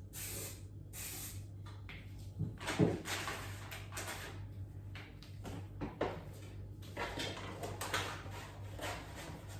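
Household handling noises: irregular rustling and light knocks, the loudest about three seconds in, over a steady low electrical hum.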